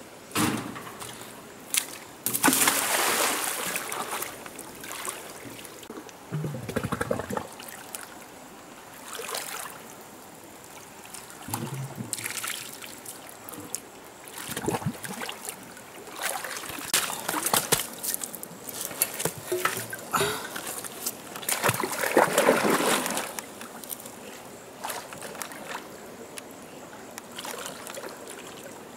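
Water splashing and sloshing in irregular bursts, some loud splashes lasting a second or two, over a faint steady hiss.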